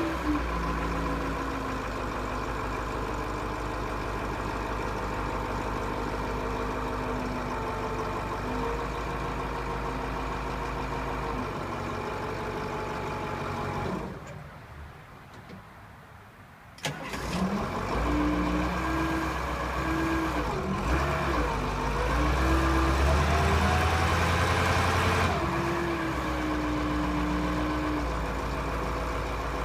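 Grove LT409 forklift's diesel engine running steadily, then cutting out about halfway through. It restarts a couple of seconds later with a sharp catch, and its speed rises and falls and runs louder for a few seconds before it settles back to an idle.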